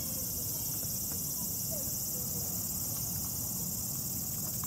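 Insects chirring in a steady, high-pitched drone, over a low background rumble.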